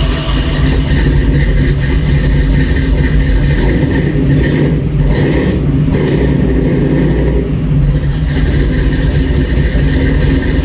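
Engine of a freshly restored 1966 Ford Bronco running loudly and steadily just after its second start since the restoration.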